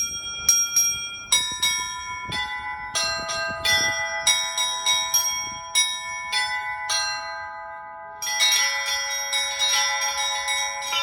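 Russian Orthodox church bells in a peal (zvon): small high bells struck in quick, uneven rhythm over longer ringing tones from larger bells. About eight seconds in, the ringing turns denser and louder as a lower bell joins.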